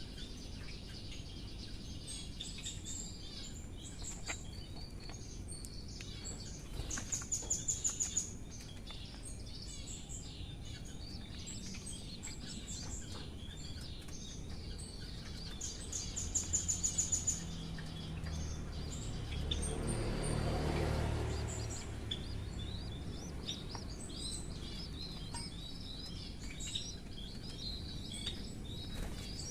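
Birds chirping and twittering, with two quick runs of rapid high-pitched chirps about seven and sixteen seconds in. Around twenty seconds in, a low noise swells and fades.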